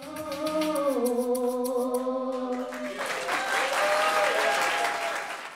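A long held note of a song, sung and dipping slightly in pitch, ends a musical performance. About three seconds in, the audience breaks into applause under the last of the note.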